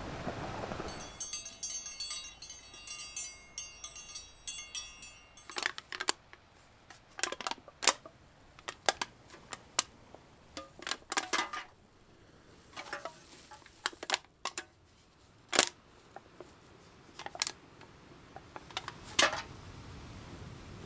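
A string of sharp, irregular clicks and clinks, some ringing briefly, over a faint hiss; the first few seconds hold a dense, high-pitched rattle, and a wash of noise fades out about a second in.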